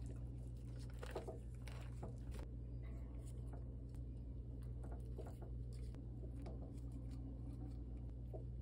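Soft rustling and light taps of soaked glass noodles and sliced rice cakes being laid into a pot of beef rolls and vegetables, mostly in the first two or three seconds, over a steady low hum.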